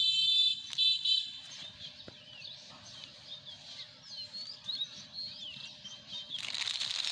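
Small birds chirping with short, quick up-and-down notes. A buzzy call sounds at the start and again about a second in. About six seconds in there is a louder burst of crackling rustle.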